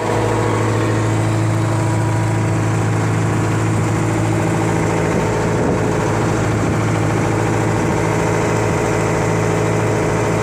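An engine running steadily at constant speed aboard a fishing boat: a loud, unchanging low hum.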